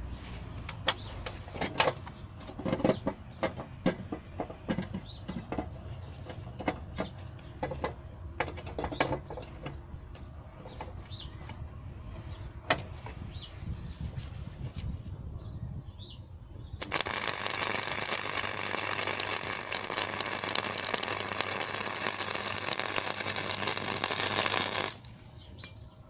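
Scattered clicks and knocks for the first two-thirds, then the arc of a Mightymig 100 flux-core welder running loud and steady for about eight seconds as it welds a steel round bar to a flat-bar plate, cutting off sharply near the end.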